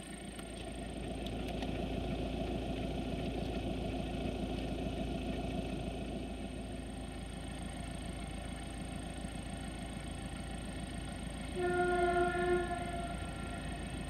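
Diesel locomotive running with a steady drone in a rail yard, then sounding its horn once near the end: a single note lasting about a second and a half.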